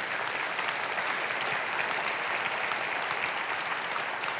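A congregation applauding: dense, steady clapping that begins to thin out near the end.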